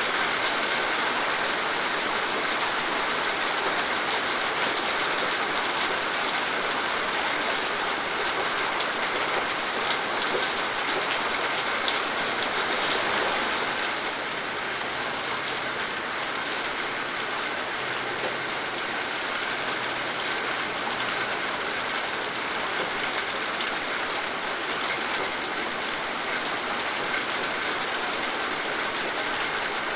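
Steady rain falling, a dense even hiss with fine drop patter. It eases slightly about halfway through.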